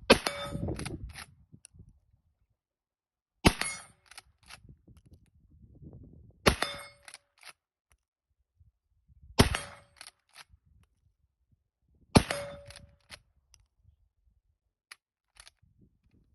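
Hanic lever-action shotgun fired five times, about three seconds apart, each shot followed by the quick metallic clicks of the lever being worked to cycle the next shell.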